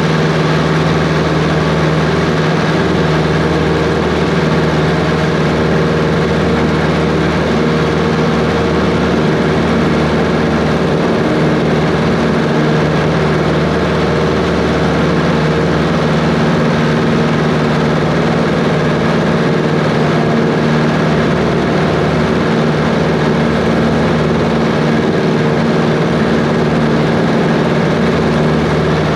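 Cessna 140's piston engine and propeller running steadily, holding a constant pitch with no change in power.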